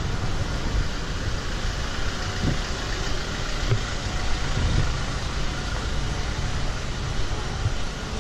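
Steady street traffic noise: a vehicle engine runs nearby as a continuous low rumble under a general roadway hiss.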